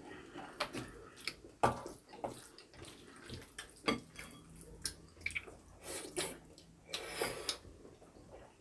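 Wet, sticky sounds of noodles in black-bean sauce being stirred and eaten with chopsticks and a wooden spoon, with scattered light clicks of the utensils against the bowls.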